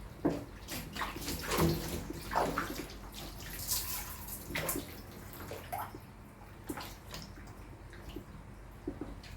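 Water splashing and sloshing in irregular bursts as a cat is washed in a tub.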